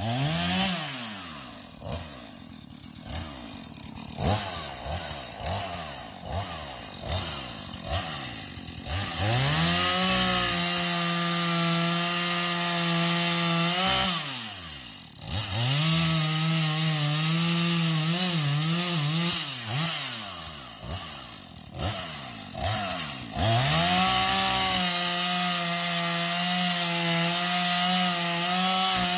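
Two-stroke chainsaw cutting up a felled log. At first it idles with short throttle blips, then it makes three long cuts at full throttle, dropping back to idle between them. The engine note wavers as it loads up in the middle cut.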